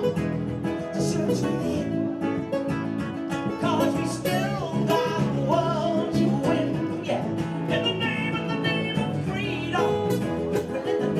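Live music: a woman singing into a microphone with instrumental accompaniment.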